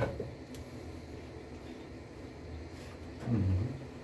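Hands working on a gas boiler's internal wiring and connectors: a sharp click at the start and a fainter tick about half a second later, then a short low sound a little past three seconds in.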